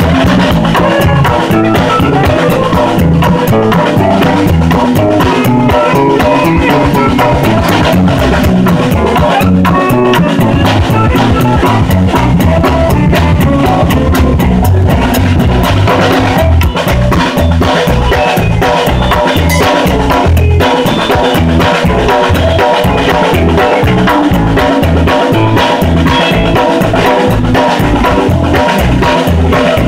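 Live band playing, the drum kit loud and close, with electric guitar and saxophone.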